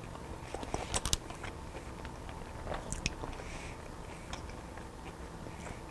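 A person chewing a crunchy snack, with scattered faint crunches and clicks.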